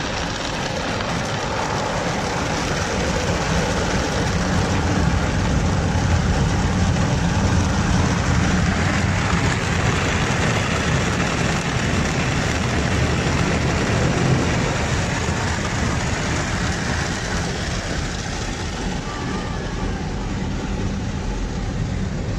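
Automatic car wash heard from inside the car: water spraying over the glass and a large rotating brush scrubbing along the side of the car, muffled by the cabin. A steady wash noise that grows louder through the middle as the brush passes, then eases off.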